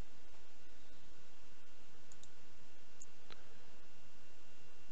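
A few light computer mouse clicks, a pair about two seconds in and two more around three seconds, over a steady background hiss.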